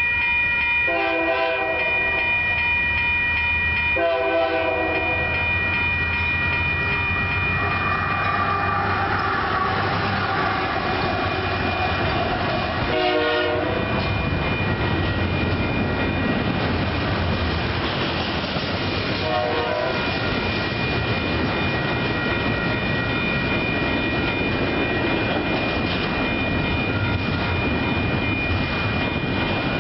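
Lead GE diesel locomotive of a Union Pacific double-stack container train sounding its air horn for a grade crossing: four chord blasts, the third short and the last fainter, over a steady ringing crossing bell. The diesel locomotives then go by with a low engine rumble, followed by the rolling clatter of the container cars.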